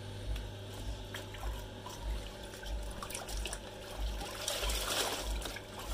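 Clothes being rinsed by hand in a plastic tub: water sloshing, splashing and dripping as a wet cloth is lifted out and plunged back, loudest a little past halfway. A low steady hum with a slow rhythmic throb runs underneath.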